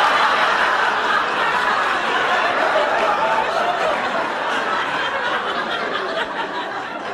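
Studio audience laughing at a punchline, loud at first and slowly dying down.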